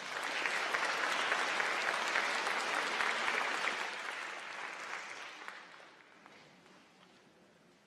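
Audience applauding, strongest for the first four seconds or so, then dying away over the last few seconds.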